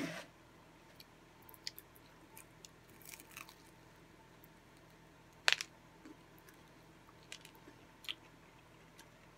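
A person biting and chewing a crispy fried chicken egg roll: quiet, scattered crunches and mouth clicks, with one sharper crunch about halfway through.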